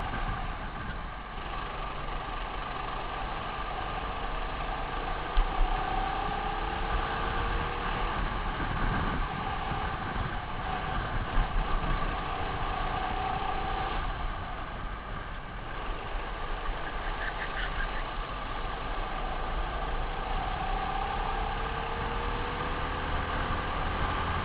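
Racing kart engine running under the onboard microphone, its pitch rising several times as the kart accelerates out of corners, over a constant rumble of wind and track. Two sharp knocks about five seconds in.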